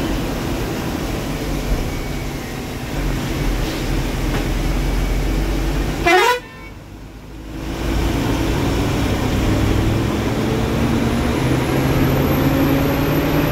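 Ashok Leyland sleeper bus's diesel engine and road noise heard from the driver's cabin, the engine note climbing steadily in the second half as the bus picks up speed. About six seconds in there is a short rising tone, then a sudden drop in sound for about a second.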